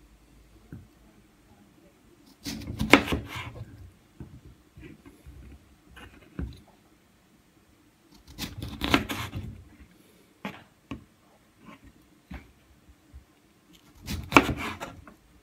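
A kitchen knife slicing lemons in half on a plastic cutting board: three cuts about six seconds apart, each a short crunching stroke through the fruit that ends on the board. Small clicks and taps come in between as the halves are moved.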